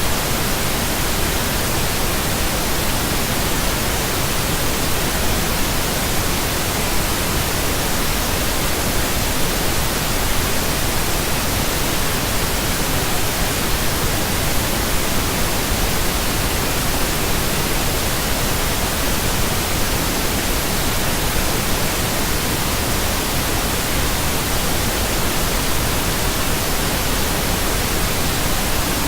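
Steady synthesized pink noise: an even, unchanging hiss across the whole range, with no tones or events.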